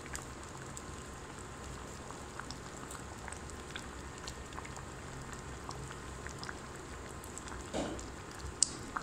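Pot of masoor (red lentil) dal simmering, small bubbles popping irregularly over a low steady hum. One sharp click near the end.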